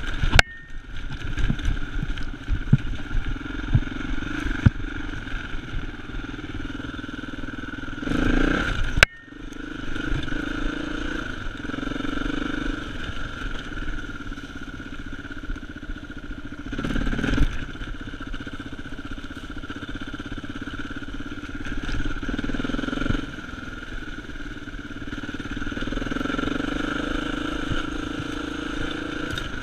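Dirt bike engine running steadily while being ridden, with scattered knocks and rattles from the bike going over a rough trail. The engine swells louder briefly about eight seconds in and again about seventeen seconds in.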